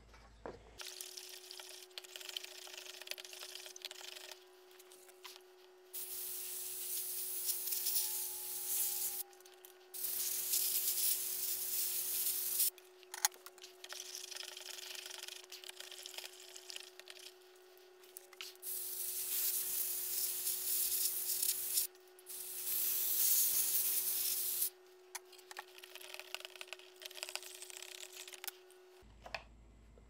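Compressed-air blow gun hissing in four bursts of two to three seconds each, blowing immersion oil off a circuit board. Quieter rubbing and handling sounds come between the bursts, with a faint steady hum underneath.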